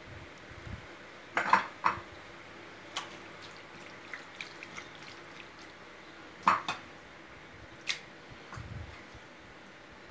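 Hands rubbing seasoning into raw chicken leg meat in a baking tray: scattered short wet squelches and light clicks, a cluster about a second and a half in, then single ones a few seconds apart.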